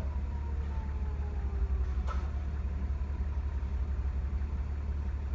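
Vehicle engine idling with a steady low rumble, while a faint siren tone falls away and fades out in the first second and a half. A single short click comes about two seconds in.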